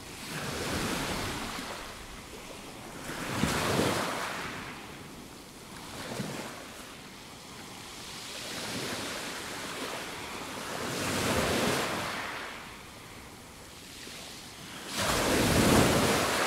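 Small waves breaking and washing up a fine pebble beach. Each wave swells and fades every few seconds, and the loudest comes near the end.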